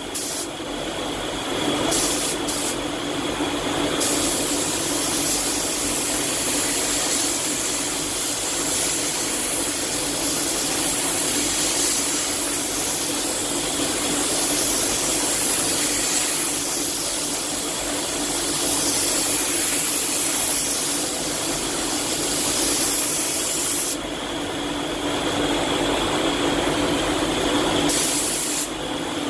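Iwata Hakone spray gun hissing as compressed air atomises clear coat: a few short bursts, then one long continuous pass of about twenty seconds that eases off near the end. A steady hum runs underneath.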